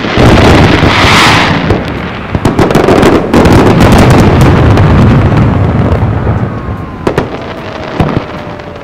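Fireworks finale: many aerial shells firing and bursting in quick succession, a dense barrage of booms and crackling with a hissing rush about a second in. The barrage thins out and fades over the last few seconds.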